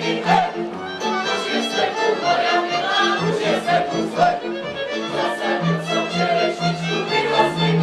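Slovak folk string band music led by fiddles, playing a tune with a steady beat.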